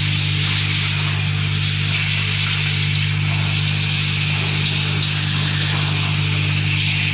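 Industrial walnut-cracking and sorting line running: a steady motor hum under a continuous rattling hiss of cracked walnut kernels and shell moving through the machinery.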